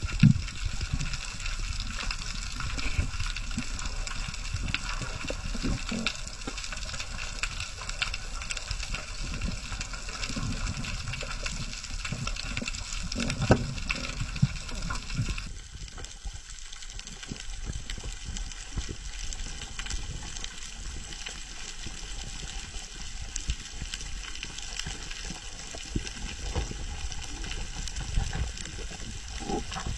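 Underwater sound picked up by a camera below the surface: a steady low rumble of moving water with scattered clicks and crackles. The higher hiss drops away about halfway through.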